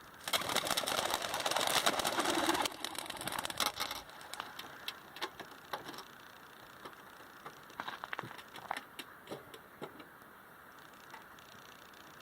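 A flock of homing pigeons taking off in a rush of clattering wingbeats, loudest for the first couple of seconds and thinning out by about four seconds in, followed by scattered faint flaps and clicks.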